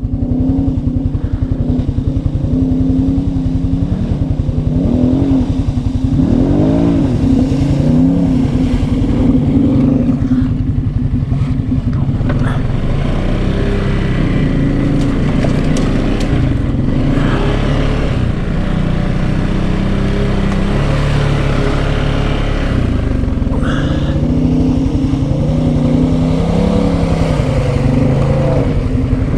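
Can-Am Outlander 700 ATV engine running while riding a trail, its pitch rising and falling with the throttle, with quick revs about five to seven seconds in. A few brief knocks are heard along the way.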